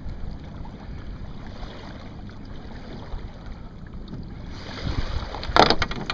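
Wind buffeting the microphone over lapping water. About five and a half seconds in, a short burst of splashing and rustling as a shot duck is grabbed and lifted out of the water.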